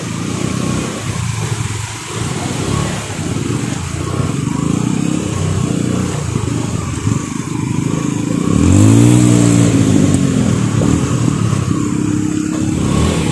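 Motorbike engine running as it rides through floodwater, over a steady hiss; about nine seconds in it revs up and eases off again.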